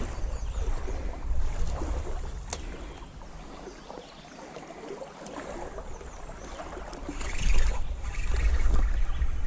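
Wind buffeting the microphone in gusts over the hiss of running stream water. The gusts are strongest near the start and again near the end, easing off in the middle.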